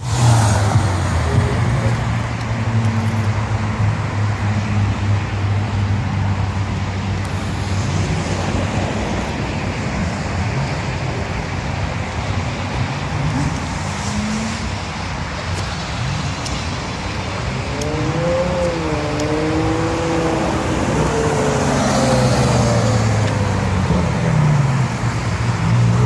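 Sports car engines running and revving as several cars drive past one after another. A steady engine drone fills the first part, and an engine note rises and falls in pitch through a burst of revs about eighteen to twenty-two seconds in.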